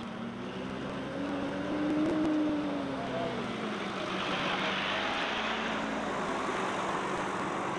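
MLRS tracked rocket launcher's diesel engine revving as the vehicle moves: the engine note rises and falls back over the first three seconds or so, then gives way to a steadier rushing noise.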